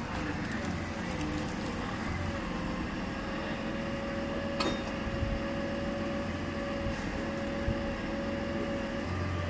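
Engine of a truck-mounted crane running steadily: a low drone with a steady whine above it, and one sharp click about halfway through.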